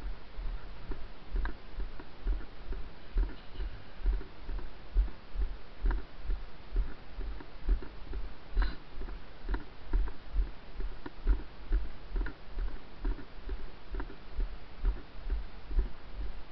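Footsteps of a person walking over wet grass and a muddy path, heard as regular low thuds about twice a second through a body-worn camera, with light clicks and rustling.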